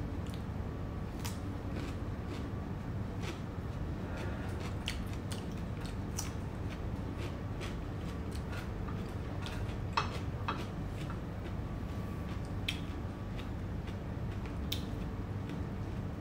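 A person eating rice and eggplant salad: chewing and mouth noises with scattered light clicks of cutlery on the dish, the sharpest about ten seconds in, over a steady low hum.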